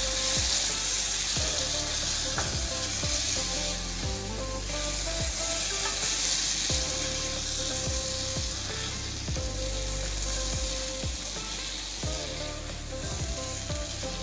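Wooden spoon stirring and scraping thick ikokore (grated water-yam pottage) in a metal pot as it cooks, with a steady sizzling hiss from the pot and irregular soft knocks of the spoon.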